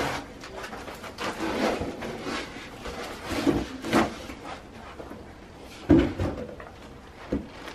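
Handling noise from unpacking a 3D printer: expanded-foam packing rubbing and scraping and plastic wrap rustling as the printer is lifted out, in several irregular spells, with a loud thump about six seconds in.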